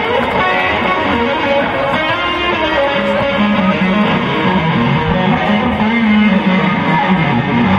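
Live rock band playing: electric guitar to the fore over drums and bass guitar, recorded from the crowd with rough, unpolished sound.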